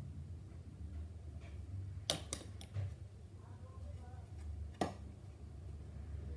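Small hard objects handled on a workbench: three sharp clicks in quick succession about two seconds in and one more click near five seconds, over a low steady hum.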